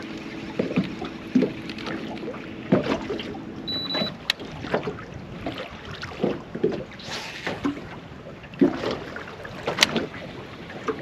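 Small waves slapping and knocking irregularly against the hull of a small fishing boat. A low hum fades out in the first couple of seconds, and a short high electronic beep sounds about four seconds in.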